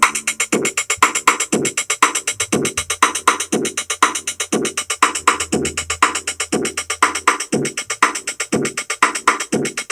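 Akai XR20 drum machine playing a beat through a small portable speaker: fast hi-hats over regular kick and snare hits about twice a second, with a low bass note held from about two seconds in until about seven seconds in.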